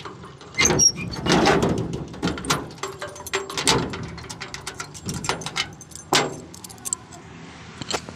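Keys jangling and clinking against a steel door as a key is worked in its lock, with repeated metal knocks and scrapes from the iron bolt latch as the door is unlocked and opened.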